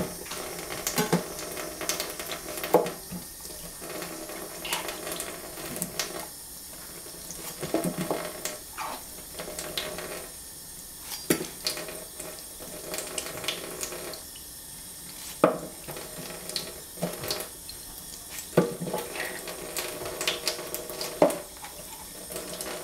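Kitchen tap running with a steady hiss while eggplants are rinsed. Scattered knocks and clatter come as the wet eggplants are set down one by one on a plastic cutting board.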